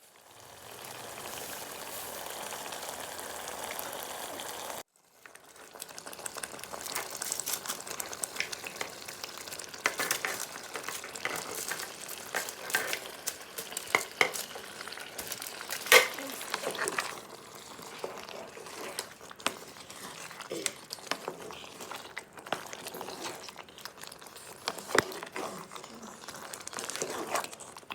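Stew frying in a pot with a steady sizzle. About five seconds in it cuts off, then resumes with a spoon stirring, scraping and clinking against the pot over the sizzle.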